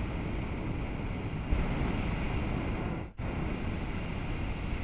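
Hot-air balloon's propane burner firing: a loud, steady rushing blast that cuts out for an instant about three seconds in, then fires again.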